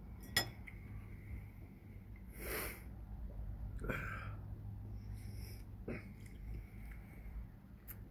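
Two short sniffs through a runny nose close to a phone's microphone, with a couple of light handling clicks from the phone and a low steady hum underneath.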